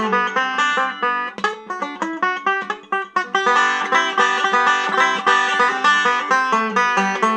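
Banjo played solo: a fast, steady stream of picked notes. The picking thins out briefly between about two and three seconds in, then comes back fuller and louder.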